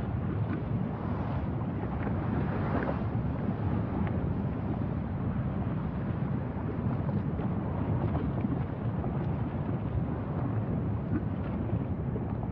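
Steady wind noise on the microphone: a low rumble and hiss that keeps going without a break.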